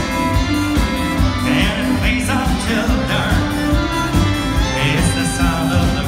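Live band music in a ballroom: a singer over drums, bass and fiddle, with a steady beat.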